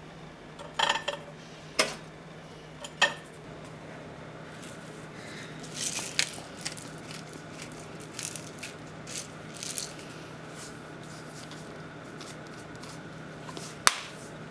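Kitchen handling sounds: a few sharp clinks and knocks in the first three seconds, then light rasps and taps as pepper and salt go onto raw shrimp in a bowl, with one sharp click near the end. A low steady hum runs underneath.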